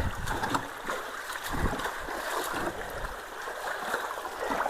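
Water rushing steadily into a partly clogged culvert, with intermittent splashing and low bumps as hands work in the water at the debris blocking it.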